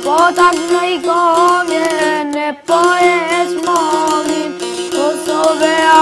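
A boy singing an Albanian folk song while playing the çifteli, a two-stringed long-necked lute, its plucked strings ringing over a steady drone note. Voice and instrument break off briefly about halfway through, then carry on.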